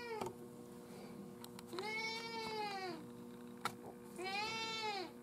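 Domestic cat meowing: the end of one meow at the start, then two drawn-out meows of about a second each, every one rising then falling in pitch. A faint steady hum runs underneath.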